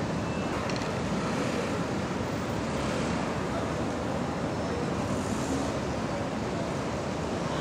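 Steady city street traffic noise: an even rush of engines and tyres from slow-moving vehicles, with no siren sounding.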